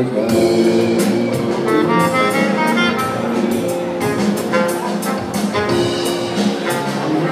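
A live band playing an instrumental passage with no singing: a horn melody over drum kit and electric guitar, amplified through a PA.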